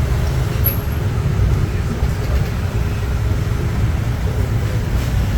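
Steady low rumble of a moving vehicle's engine and road noise, heard from on board.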